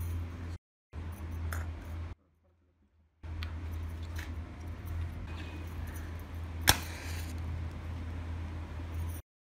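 Miniature glass oil lamps with brass burners being handled: small clinks and taps of glass and metal, with one sharp click about seven seconds in, over a steady low hum. The sound cuts out twice briefly.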